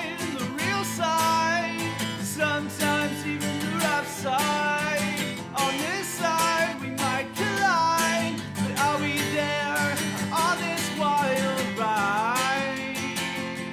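Outro music: a song with a sung melody over strummed acoustic guitar and a steady beat.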